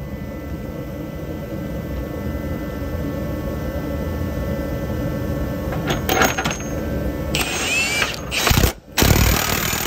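Power tool spinning a socket to run a subframe bolt up into its threads: a steady motor whine with rattling that slowly grows louder, then louder bursts over the last few seconds as the bolt runs in.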